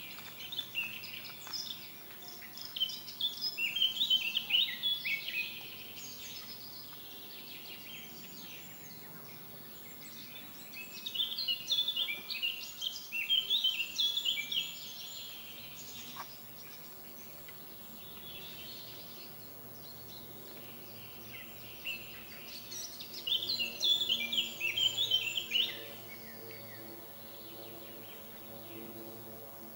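A songbird singing in three bouts of rapid, high chirping phrases about ten seconds apart, over a steady outdoor hiss and a faint low hum.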